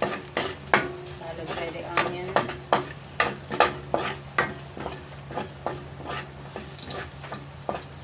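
Chopped garlic frying in a little hot oil in a wok, with a faint sizzle, while it is stirred: a utensil scrapes and taps the wok in a quick, irregular series of clicks. A steady low hum runs underneath.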